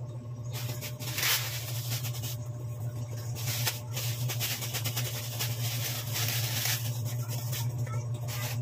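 Plastic wrapper rustling and dry miswa noodles crackling as they are broken by hand into a pot of simmering broth, in uneven bursts, over a steady low hum.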